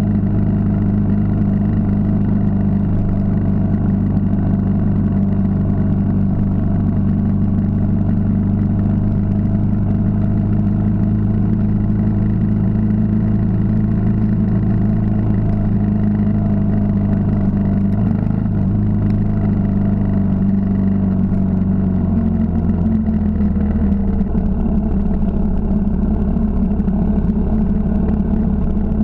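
Yamaha XT 600 single-cylinder four-stroke engine running steadily under way, heard close from a mount on the bike. About three-quarters of the way through its note steps down lower as the bike slows.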